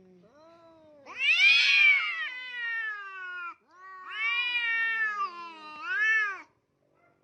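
A cat yowling: three drawn-out meows, each rising then falling in pitch, the first two long and the last one short.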